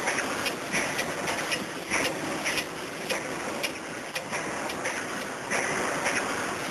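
Oil rig machinery ambience: a steady mechanical rumble and hiss with frequent irregular clanks and clicks.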